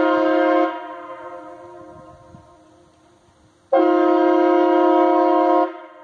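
Hornblasters Outlaw train horn blowing a loud multi-tone chord: a blast cuts off under a second in and its echo fades away over about three seconds, then a second blast of about two seconds cuts off and echoes again.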